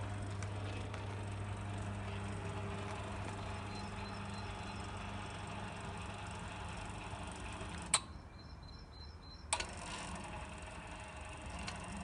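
Electromechanical swing-gate actuator's motor humming steadily as it drives the gate, then dying away. Two sharp clicks come about a second and a half apart near the end.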